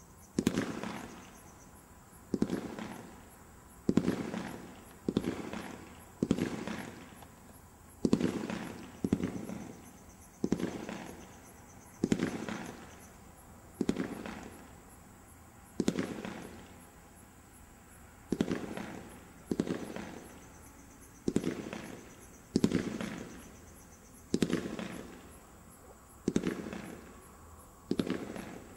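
A Panta Uran 25-shot firework battery firing single shots one after another, about one every one and a half seconds. Each shot is a sharp bang followed by a tail that fades over about a second.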